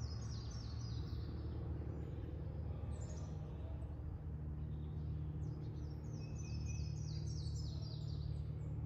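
Wild songbirds singing: a run of quick falling chirps at the start, a short one about three seconds in, and a longer run about six seconds in, over a steady low hum.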